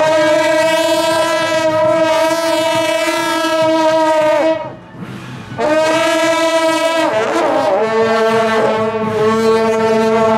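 Shaojiao, the long brass horns of a temple procession, blown together in long held blasts: one lasting about four and a half seconds, a short break, then a second that drops to a lower note partway through.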